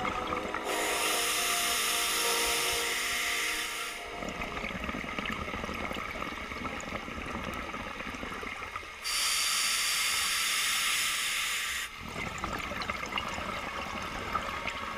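Scuba diver breathing through a regulator underwater: two long hissing inhalations of about three seconds each, each followed by the rumble and crackle of exhaled bubbles.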